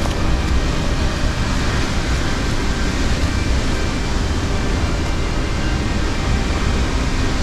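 Steady roar of rushing white water from the North Fork of the Sauk River and its falls, an even, unbroken noise with a strong low rumble.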